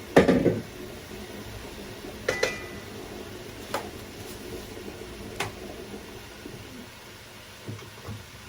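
A utensil knocking against a metal cooking pot: one loud clank, then three or four lighter clinks spaced a second or two apart, over a steady low background hiss.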